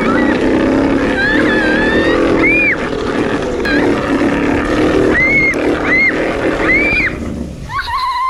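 A rider's high-pitched screams, several short rising-and-falling yelps, over the steady rumble of a sled running fast down a long outdoor slide. The rumble fades as the sled slows near the end.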